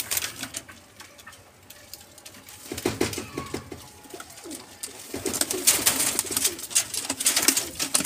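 Teddy pigeons cooing in low pulses, starting about three seconds in and picking up in the second half, mixed with a busy patter of rustling and scraping.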